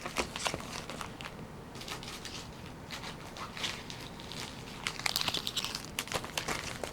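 Plastic and foil trading-card packaging crinkling and crackling as it is handled, in scattered crackles with a denser burst of crinkling about five seconds in.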